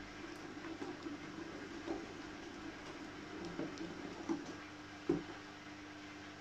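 Wooden spatula stirring half-formed glue-and-activator slime in an enamel bowl: faint wet squelches and light taps, with a sharper knock about five seconds in, over a steady low hum.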